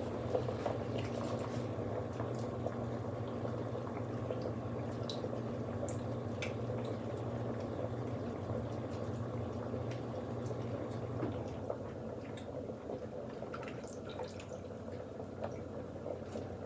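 Large pot of noodle water at a rolling boil, bubbling steadily, with light clicks and scrapes of a wire whisk stirring gravy in a saucepan.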